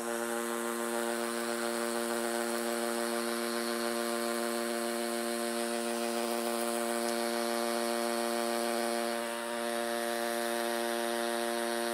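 DeWalt 12V Xtreme hammer drill running in hammer mode on speed one, boring a small masonry bit into a concrete block with a steady buzzing drone that dips briefly about nine and a half seconds in. On this low speed it drills too slowly for concrete.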